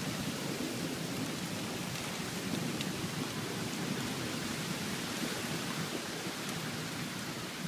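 Steady rain falling during a storm: an even, unbroken hiss with faint scattered drop ticks.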